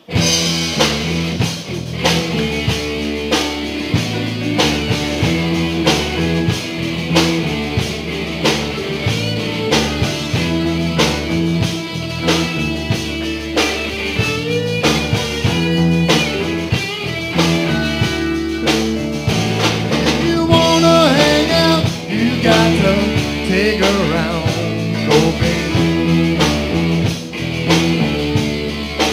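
Live rock band playing: electric guitars over a drum kit. The band comes in suddenly right at the start.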